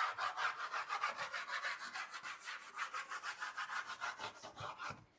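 A pencil scribbling back and forth over an MDF wasteboard, shading it in quick, even strokes of a few a second. The scratching stops just before the end.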